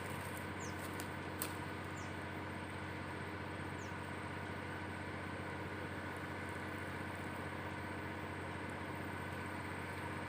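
A steady mechanical hum with a few short, high, falling chirps in the first few seconds and a faint click about a second and a half in.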